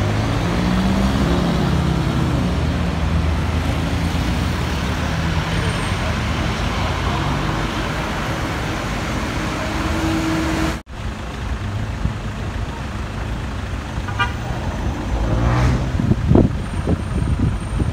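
City street traffic heard from a car: engines and road noise, with a short car horn toot about ten seconds in. After an abrupt cut the traffic noise goes on, and wind buffets the microphone near the end.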